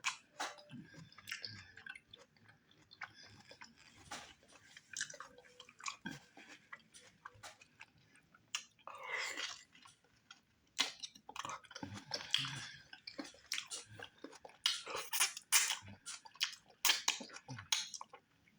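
Close-miked wet chewing and lip-smacking of a person eating chewy cow skin in slippery okra stew with fufu, irregular and quick, with one longer sucking sound about nine seconds in.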